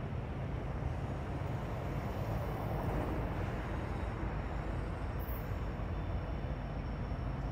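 Diesel freight locomotives approaching at the head of a long freight train, their engines giving a steady low drone.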